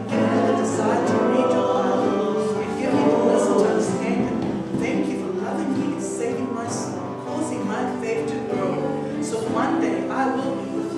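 A worship song with sung voices over instrumental backing.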